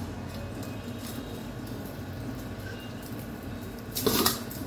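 Low, steady background with handling noise. About four seconds in comes a brief scraping rustle as small frozen chanda fish, not yet thawed, are pulled apart in a steel bowl.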